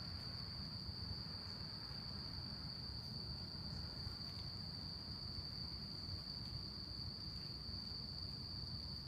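Night chorus of crickets and other insects, one continuous high-pitched trill that holds steady without a break, over a faint low rumble.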